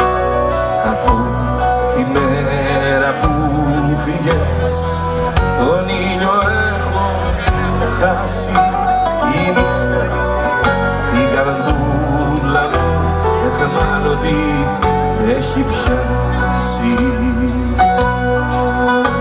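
Live Greek popular band music: bouzouki, violin, electric guitar, keyboards and drums playing together over a steady low beat, with a wavering melody line on top.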